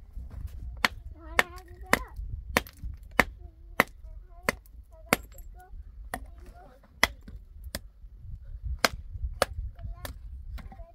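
Sharp hammer blows on stone, about fourteen in a row, roughly one every half to three-quarters of a second with a brief pause about halfway: stones being knocked into shape for a dry-stone wall.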